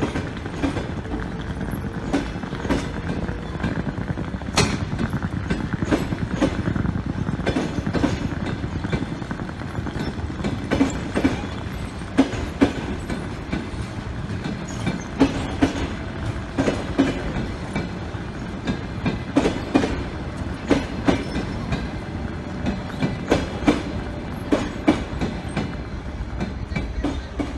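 Passenger train wheels clacking over rail joints, heard from inside the carriage: a steady rolling rumble with groups of sharp clacks every second or so.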